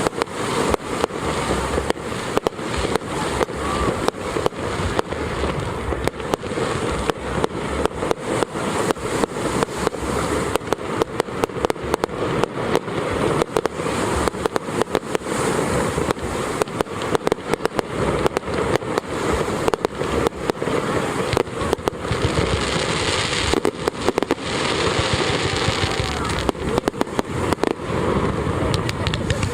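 Fireworks display: a rapid, unbroken string of bangs and crackles, several reports a second.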